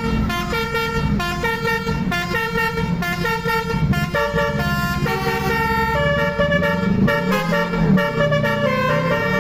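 Bus telolet basuri horn, a set of electric multi-trumpet air horns, playing a tune of quickly changing notes, with a phrase repeating in the first half. A low rumble runs underneath.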